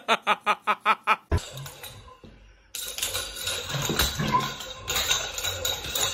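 Someone laughing in a quick run of about eight 'ha's lasting about a second, followed by a sharp knock. Then a steady noisy background with a few sharp clicks.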